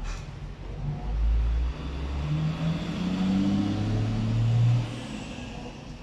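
Toshiba AW-SD140UBB top-loading washing machine's motor turning the tub: a low hum that rises in pitch for a few seconds, then stops abruptly.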